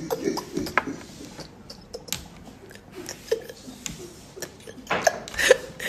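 A woman laughing quietly to herself: soft breathy giggles with mouth clicks, and a louder laughing breath about five seconds in.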